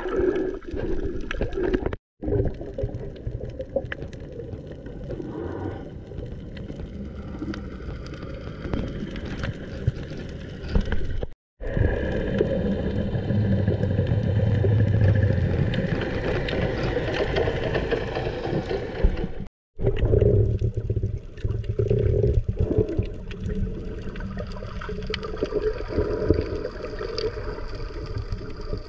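Muffled underwater sound picked up by an action camera: continuous water rushing and gurgling with a low droning hum under it. The sound drops out for an instant three times.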